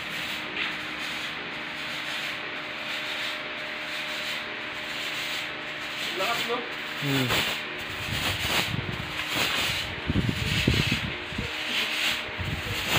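Handheld disinfectant fogger hissing steadily as it sprays thick fog, with louder low rumbling from about eight seconds in.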